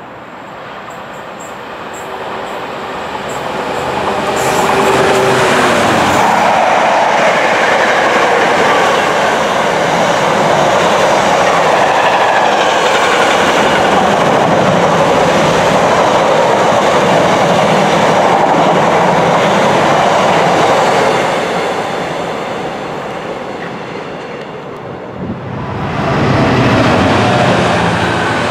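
Container freight train passing close: the rumble and clickety-clack of its wagons builds over the first few seconds, holds loud and steady, then eases off. Near the end the sound jumps up suddenly as a GBRf Class 66 diesel locomotive passes at the head of another container train.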